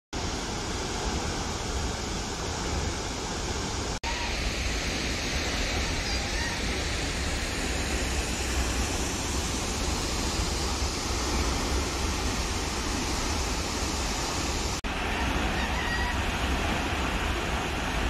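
Steady rushing noise of a distant waterfall mixed with wind, with a low rumble of wind on the microphone. The sound cuts out for an instant twice.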